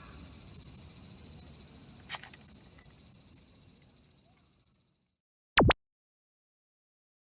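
A steady chorus of insects, high-pitched and faintly pulsing, fading out about five seconds in. It is followed by two short, loud clicks.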